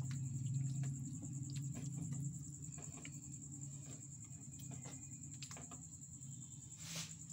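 Spoon stirring thick mango pulp into warm sugar syrup in a pan: faint scattered clicks and scrapes over a steady low hum.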